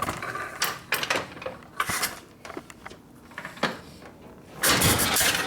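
1972 Harley-Davidson Ironhead Sportster V-twin being started after a rebuild, cranking and firing unevenly without settling into an idle, with a loud burst near the end. The carburetor has just been flooding over, which the owners put down to a float needing adjustment.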